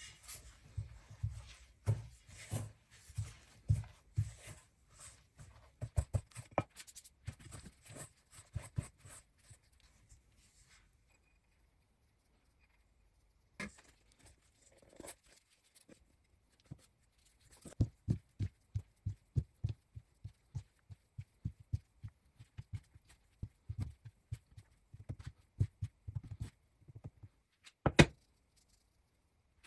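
A spatula scraping and knocking against a stainless steel mixing bowl as sifted flour is stirred into a wet dough: a dense run of short irregular scrapes and taps. After a pause of several seconds comes another run of soft taps and thuds as the dough is turned out onto a silicone mat and flour is sifted over it, then one sharp knock near the end.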